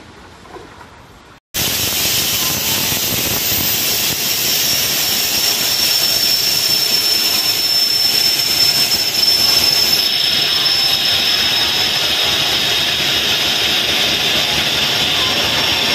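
WDP4D diesel locomotive's 16-cylinder two-stroke EMD 710 engine running steadily at close range: a loud, even rush with a steady high whine over it. It starts suddenly about a second and a half in.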